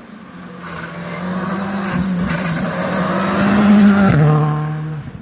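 Rally car at speed, its engine note building louder as it approaches and pitching up slightly. About four seconds in, the car passes at its loudest and the note drops abruptly to a lower pitch as the driver lifts or changes gear, then fades as it goes away.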